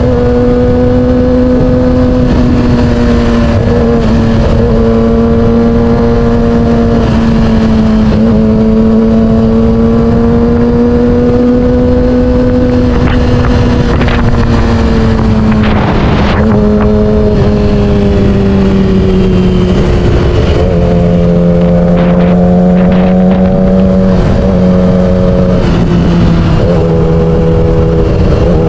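Yamaha R6's 600cc inline-four running at steady riding revs, its pitch easing slightly lower a few times, with heavy wind noise buffeting the camera microphone.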